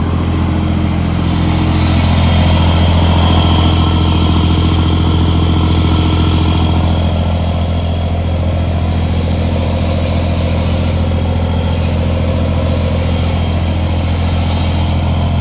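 New Scania truck's diesel engine idling steadily through its freshly modified exhaust, a loud, even, low rumble that swells slightly about two seconds in.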